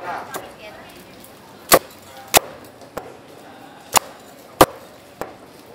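A cleaver chopping through crispy roast pork on a chopping block: sharp single chops, four loud and two lighter, spaced unevenly about half a second to a second apart.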